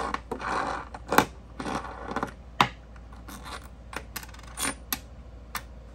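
Small metal fidget-spinner parts, bearings and button caps, clinking and scraping as they are handled and set down on a wooden table: a few sharp clicks a second or so apart, with rubbing scrapes between them.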